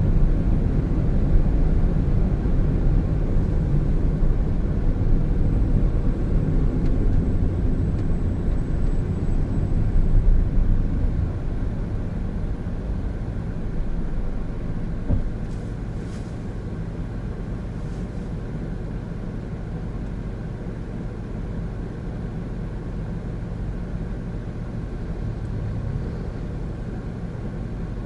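Road and engine noise of a Honda N-BOX Custom, a 660 cc turbo kei car, driving in traffic: a steady low rumble that drops in level about halfway through and stays quieter.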